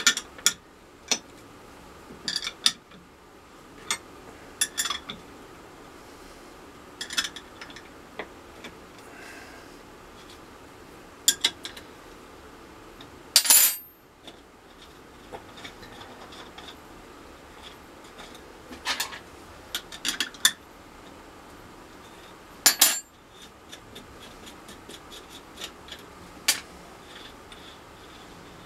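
Metal parts of a bolted leather embossing press clinking as it is opened: nuts, tools and steel plates being handled, giving scattered sharp clinks. The two loudest come about halfway and two-thirds of the way through.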